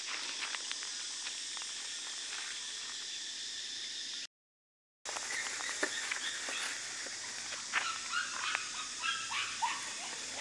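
Young stray puppy whimpering in short high whines in the second half, with small clicks and rustles on gravel, over a steady high hiss. The sound cuts out completely for under a second near the middle.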